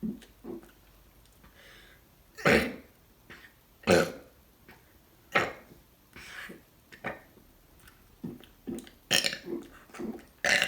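A person burping over and over: about half a dozen loud burps a second or two apart, with smaller, shorter ones in between.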